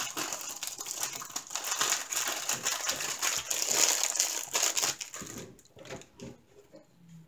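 Clear plastic packaging crinkling and rustling as it is handled, dense and continuous for about five seconds, then giving way to a few soft knocks of items being picked up and set down on the table.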